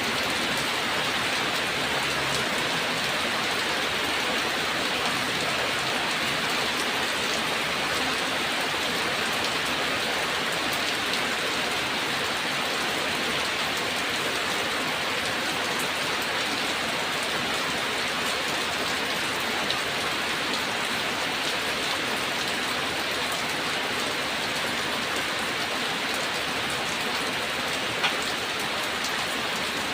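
Steady rain falling, an even unbroken hiss, with a couple of sharper drop taps, the clearest one near the end.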